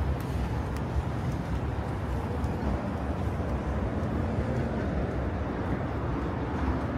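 Steady outdoor city street ambience, mostly a low rumble of traffic, with no distinct single event.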